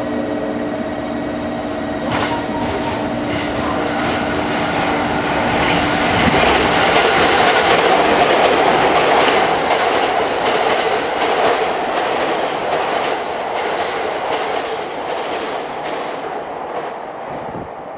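JR Kyushu 783 series electric train, twelve cars, running past on the track. The rush of wheels on rail builds to its loudest about seven to twelve seconds in, with repeated clacks as the wheels cross rail joints, then fades as the last cars pull away.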